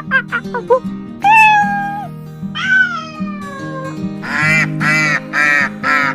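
Two drawn-out cat meows, followed by a quick run of short calls, about three a second, that sound like duck quacks, all over background music.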